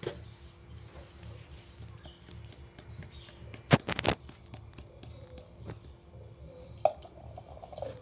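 Kitchen containers being handled on a concrete floor: clinks and knocks of steel bowls and a plastic jar. There is a loud cluster of knocks about four seconds in and another sharp knock near the end, over a faint steady hum.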